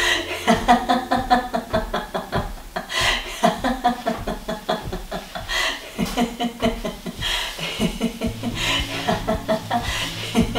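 Free laughter: a laughing voice repeating quick 'ha-ha' pulses several times a second, with a steady low tone from background music coming in near the end.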